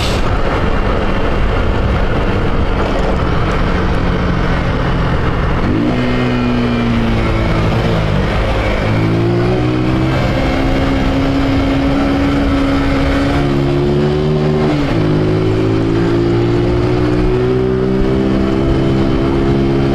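Honda CG Titan 150's single-cylinder engine pulling under way, carbureted and running without air filter or intake hose; its note climbs and changes pitch at gear shifts about six, nine and fifteen seconds in.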